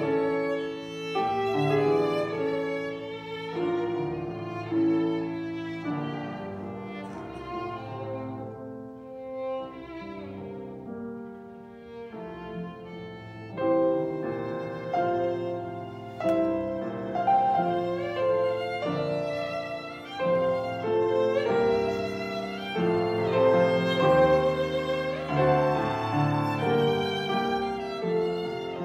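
Live classical violin playing sustained, bowed melodic lines, with piano accompaniment underneath. The music swells louder about halfway through and again near the end.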